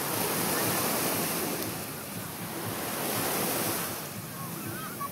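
Small waves washing onto a sandy beach, swelling and fading every few seconds, with wind buffeting the microphone.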